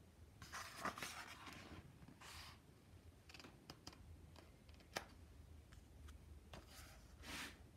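A faint page turn of a hardcover picture book: soft paper swishes and rustles about half a second in and again near the end, with a few light ticks and one sharp tap about five seconds in as the book is handled and settled.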